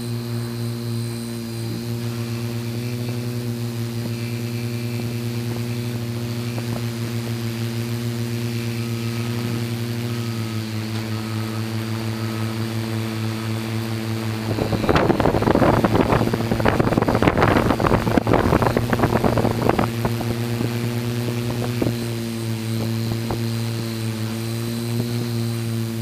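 Camera drone's motors and propellers humming steadily in flight: one steady pitched hum with several overtones. About fifteen seconds in, a loud burst of crackling noise covers the hum for around five seconds, then the hum carries on.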